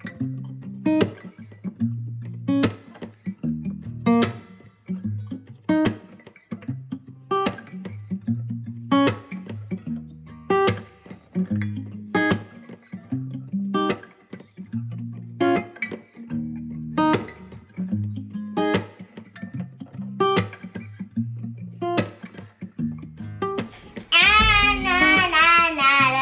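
Background music on strummed acoustic guitar with a steady beat. About two seconds before the end, a loud voice with a wavering pitch comes in over it.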